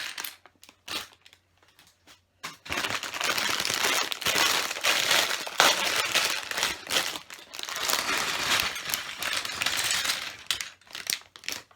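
Plastic LEGO parts bags crinkling and rustling as they are handled. There are a few sharp clicks in the first couple of seconds, then continuous crinkling, then scattered clicks near the end.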